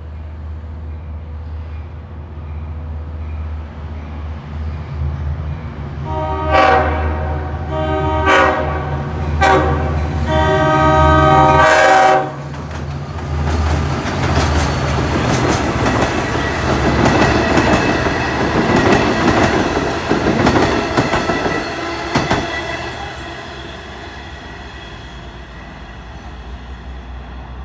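A Long Island Rail Road DM30AC diesel locomotive sounds its multi-note air horn in four blasts from about six to twelve seconds in, the last held longest. It then passes close by with its diesel engine running and its wheels clacking over the rail joints, and the sound dies away near the end.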